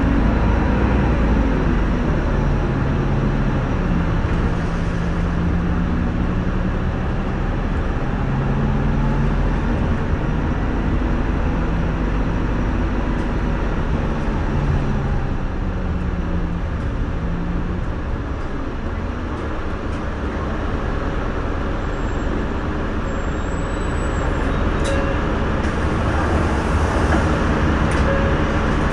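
City bus running in traffic, heard from inside the cabin: a steady engine and road rumble, with a low engine drone that rises and falls in pitch as the bus speeds up and slows.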